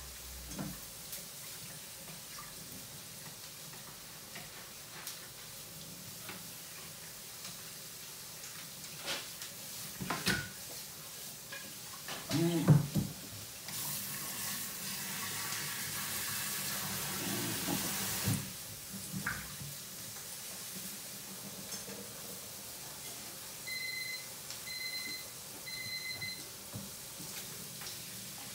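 Kitchen tap running at a stainless-steel sink for about four seconds in the middle, with knocks and clatter of kitchenware before it, loudest just before the water starts. Near the end a kitchen appliance gives three short electronic beeps about a second apart.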